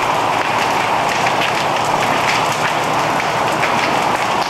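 Large building fully involved in fire, burning with a steady rushing hiss and frequent crackles and pops.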